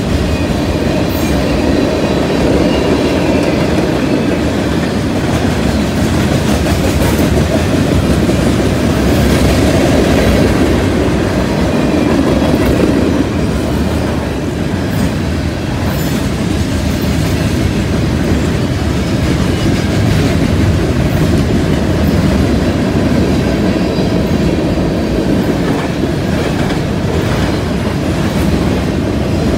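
Freight train cars rolling past close by: a loud, steady rumble of steel wheels on the rails with the clickety-clack of wheels over rail joints.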